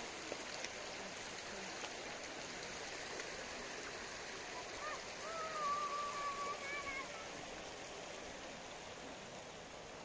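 Steady rush of flowing water from a stream and small weir. About five seconds in, a brief drawn-out high call rises out of the water noise and fades within two seconds.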